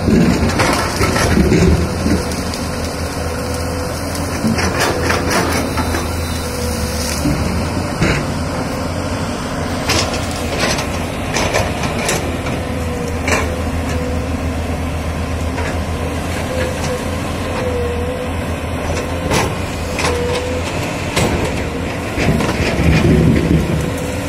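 JCB 205 excavator's diesel engine running steadily, with a steady whine over it. Branches crack and snap as the bucket pushes through dense brush, in clusters about halfway through and again a few seconds later.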